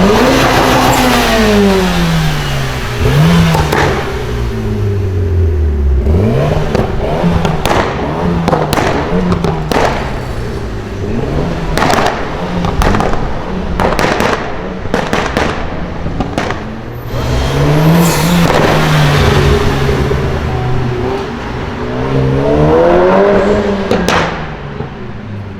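Mitsubishi Lancer Evolution X's turbocharged 2.0-litre four-cylinder being revved hard, its pitch sweeping up and falling back twice. Between the revs comes a long stretch of rapid crackles and pops from the exhaust on the overrun.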